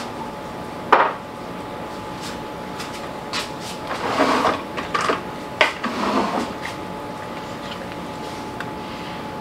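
Kitchen handling clatter: a sharp click about a second in, then a few knocks and rattles near the middle, over a steady hum.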